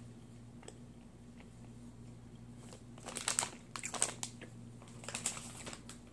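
Plastic snack bag crinkling as it is handled, in several short bursts between about three and five and a half seconds in.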